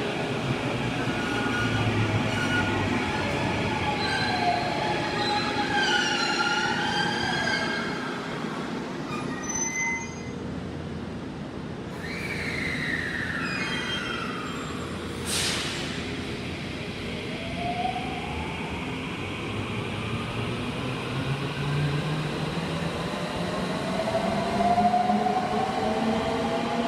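Electric commuter train moving through the station over a steady rumble of wheels on rail, its motors whining. The whine falls in pitch, then rises again as the train pulls away, with a short sharp hiss about fifteen seconds in.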